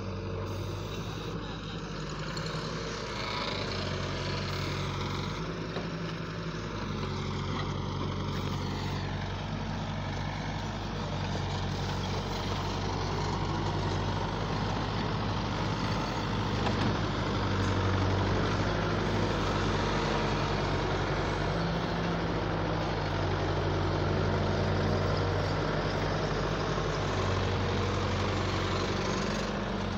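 Diesel engines of a Hitachi wheeled excavator and a farm tractor running throughout, the low engine note stepping up and down as the excavator digs and loads soil.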